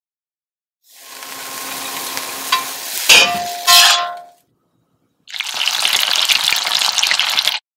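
Bean sprouts and vegetables sizzling as they are stir-fried in a cast-iron wok, with a spatula scraping and clanking loudly against the pan twice about three seconds in. After a short gap, spring rolls (lumpia) sizzle steadily as they deep-fry in hot oil in a cast-iron skillet.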